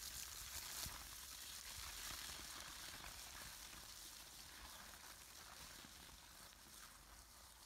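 Faint steady hiss of water from a garden hose pouring onto tilled soil.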